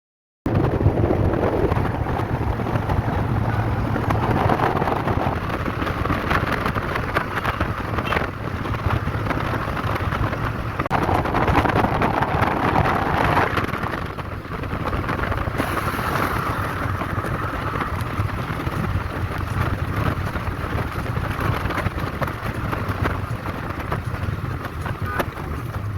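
A moving vehicle's engine and road noise, a steady low rumble that starts abruptly about half a second in.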